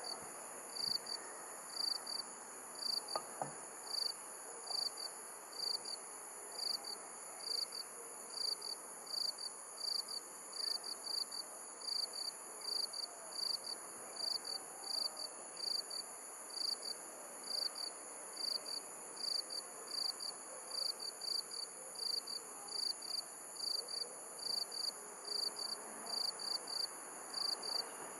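Night insects chirping and trilling: a short high chirp repeating about twice a second over two steady, higher-pitched trills.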